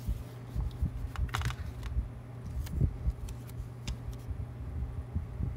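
Handling noise of a plastic stock prod housing and an adhesive paper label: scattered small clicks and knocks over a steady low hum, a short papery crinkle about a second and a half in, and a single thump near three seconds.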